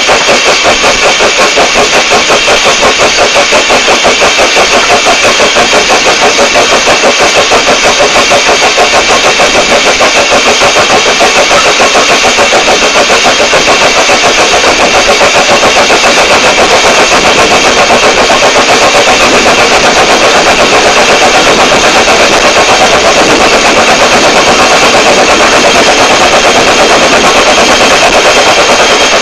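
Small blue tank steam locomotive Bluebell working along the line, its exhaust chuffing in a fast, even rhythm that grows a little louder in the second half.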